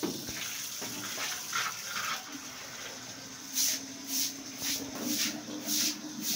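Grass broom swishing water across a wet concrete floor in strokes about twice a second, starting about halfway through, over water running from a tap pipe.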